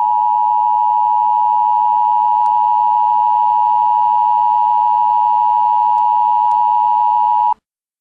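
Emergency Alert System attention signal: a loud, steady two-tone electronic tone that cuts off abruptly about seven and a half seconds in.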